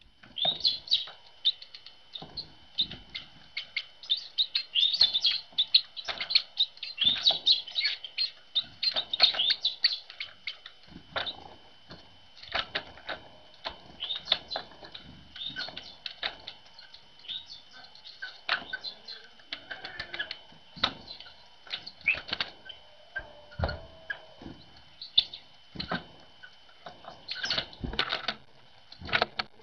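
Great tits and blue tits at a feeder: many short, high chirps and calls, mixed with repeated quick wing flutters as birds fly in and out.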